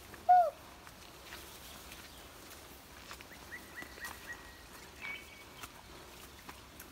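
Forest birds calling: one loud, short falling call just after the start, then a run of short, high whistled notes and a held high note around the middle, with faint footsteps in the undergrowth.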